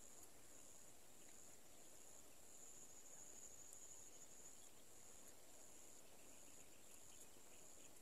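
Faint, steady high-pitched insect chirring, with a few faint ticks.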